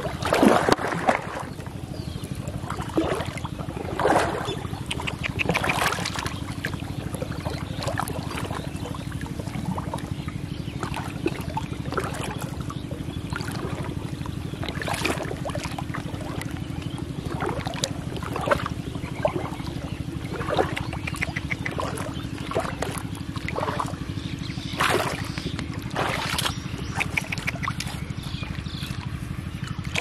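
Hooked catfish thrashing in shallow river water: irregular splashes, loudest in the first second, over a steady low rumble.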